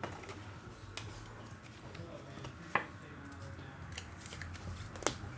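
Trading cards being handled and flipped through: soft sliding and a few light clicks over a faint low hum, the sharpest click near the middle.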